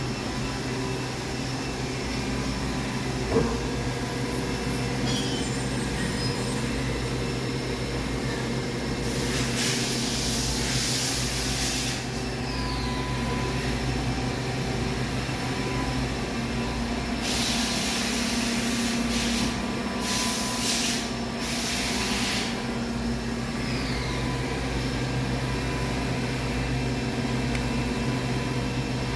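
Regent 1632AHD surface grinder running with a steady hum, with a sharp click about three seconds in. Two stretches of high hiss, each lasting a few seconds, come in and stop partway through.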